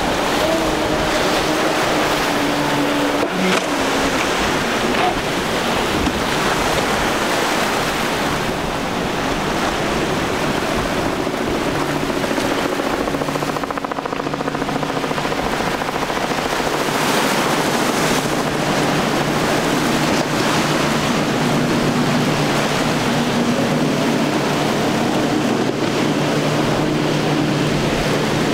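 Large multi-outboard boats, among them a Midnight Express on quad Mercury Racing 450 hp outboards, running at speed: a steady outboard drone that shifts in pitch a few times, under the rush of hull spray and wake water.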